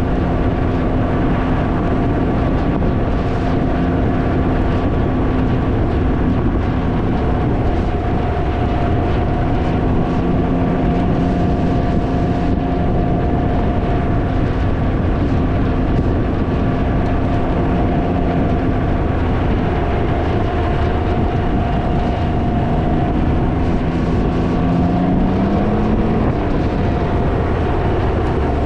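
Can-Am Ryker three-wheeler engine running at a steady cruise under heavy wind noise on the microphone. Near the end the engine note rises as it accelerates.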